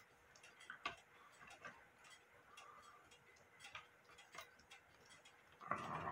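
Near silence with a few faint, irregular clicks from the WUBA Warmink Dutch clock's movement as it is handled, its gong train failing to trip, and a brief rustle near the end.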